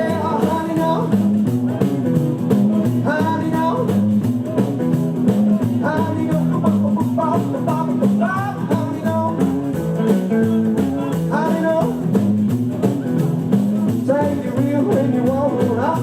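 Live rockabilly band playing an instrumental break: electric lead guitar phrases repeating every couple of seconds over a stepping bass line and drums, with no singing.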